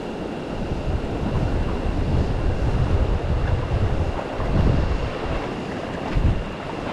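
Wind buffeting the microphone in uneven low gusts over the steady rush of a shallow, rocky river.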